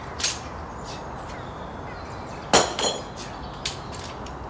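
Sharp metallic clanks of steel scaffold clamps knocking against a magnet-fishing magnet, about four in all. The loudest comes about two and a half seconds in and rings briefly.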